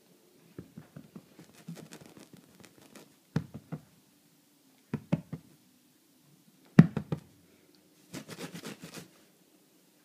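Kittens' paws and claws scratching and tapping at a closed laptop and the bedspread as they play, with a few sharp knocks; the loudest knock comes about seven seconds in, followed by a second or so of scratching.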